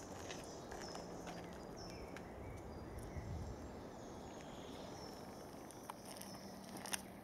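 Faint woodland ambience: short, thin high bird calls over a low background hiss, with a few light footfalls and clicks on a dirt path, the sharpest click near the end.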